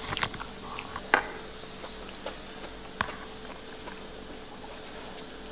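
Table sounds of eating: a few sharp clicks and taps of a spoon and fingers picking food off a wooden serving board and dishes, the loudest about a second in, over a steady faint high hiss.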